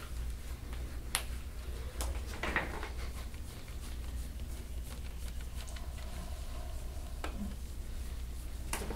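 Steady low hum with a few soft clicks and a short rub, as a hard plastic scraping tool is worked over the skin of a shoulder in soft-tissue work.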